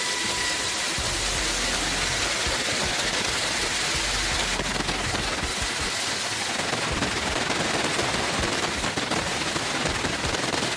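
Helicopter rotor and turbine noise heard from aboard: a steady rushing noise with a fast, even flutter running through it.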